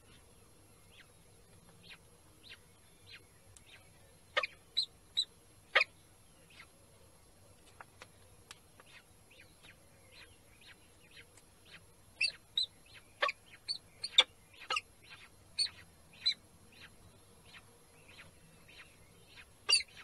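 Peregrine falcons at the nest as a chick is fed: a run of faint, high, short cheeps about twice a second, typical of a chick begging. Clusters of louder, sharp calls come about four seconds in, again around twelve to sixteen seconds in, and once near the end.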